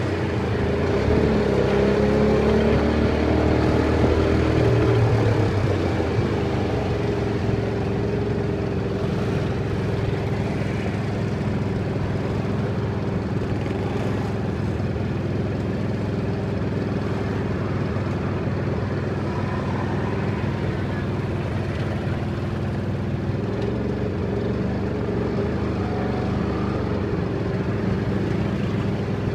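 Tuk-tuk's small engine heard from the open passenger cab, its pitch shifting as it pulls along for the first five or six seconds, then settling to a steady, lower run as it creeps along and waits in slow traffic among cars and motorbikes.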